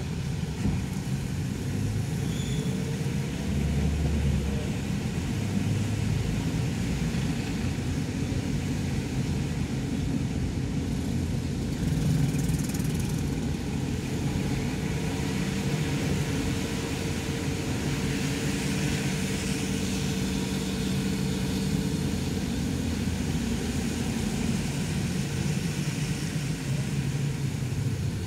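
Car moving slowly in traffic on a wet road, heard from inside the cabin: a steady low engine and road rumble with an even hiss of tyres on the wet surface.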